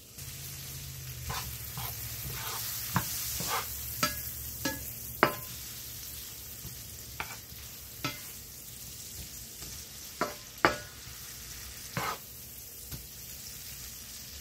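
Green and yellow beans sizzling in garlic butter in a skillet while a wooden slotted spatula tosses them, knocking and scraping against the pan about a dozen times. The sizzle is loudest in the first few seconds, then settles.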